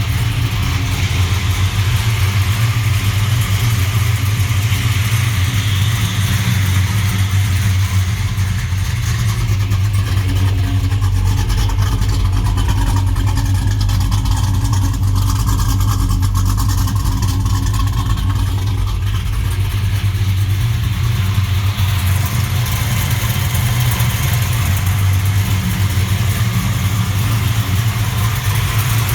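A 416 cubic-inch LSX V8 in a 1967 Chevelle SS idling steadily, with an even pitch and no revving.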